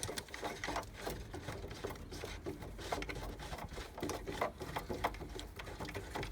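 Rapid, irregular clicking and knocking of hands and tools working on a whole-house water filter housing as it is opened for service, over a low steady rumble.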